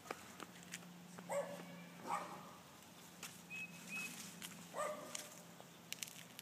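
Dogs barking faintly: three short barks, about a second in, two seconds in and again near five seconds.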